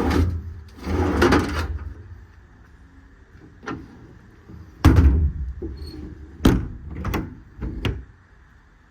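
A service-body compartment being handled: a drawer sliding, then a heavy thud and several sharp knocks as the compartment door and its latch shut.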